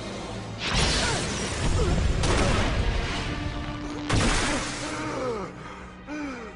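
Cartoon sci-fi action sound effects over dramatic score: three long bursts of rushing, crackling effect noise, then falling swooping tones near the end.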